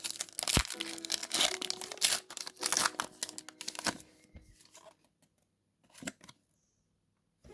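A Pokémon TCG booster pack's foil wrapper being torn open and crinkled for about four seconds, then near quiet with one brief rustle about six seconds in.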